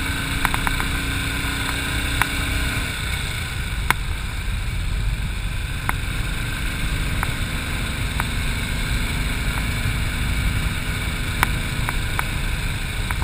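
Royal Enfield single-cylinder motorcycle engine running steadily at cruising speed, with wind rush over a handlebar-mounted camera and a few sharp ticks.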